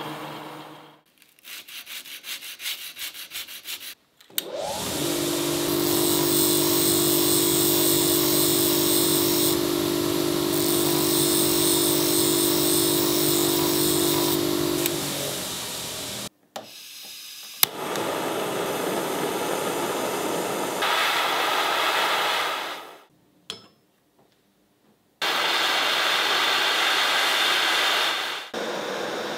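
A run of workshop machining sounds on a steel screwdriver blade. First an abrasive pad rubs the blade as it spins in a lathe. Then a bench grinder spins up and runs with a steady hum while the blade tip is ground against its wheel, and near the end a butane torch hisses as it heats the tip.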